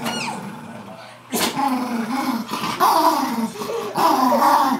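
Dachshund growling in play during a tug-of-war over a rope toy, in long, wavering growls from about a second and a half in. A brief falling squeak comes right at the start.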